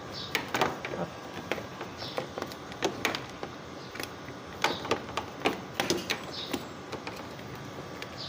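Irregular small clicks and light knocks from handling a jumper wire and its clamps at a car's battery terminals.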